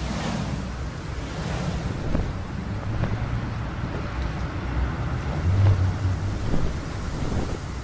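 Sound-effect wind rushing steadily, with low rumbling gusts that swell several times.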